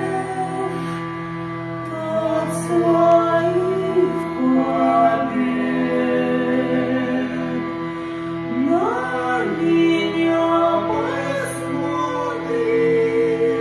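Hurdy-gurdy playing live, its steady drone held under a melody, with a voice singing over it. The voice slides steeply up in pitch about nine seconds in and again about eleven seconds in.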